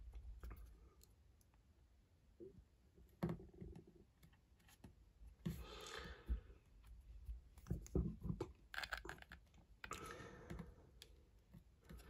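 Small plastic LEGO pieces handled: a LEGO cat figure taken off the stud of a brick stand and the next one put on, giving faint, irregular clicks and rustles with a short near-silent pause about a second in.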